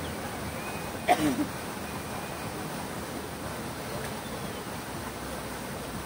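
Fountain water running steadily, with a duck giving one short call about a second in.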